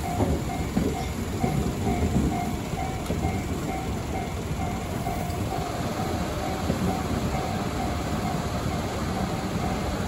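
Tobu Line electric train running past a level crossing, its low rumble and wheel knocks dying away about halfway through. Throughout, the crossing's warning bell rings on and off, about twice a second.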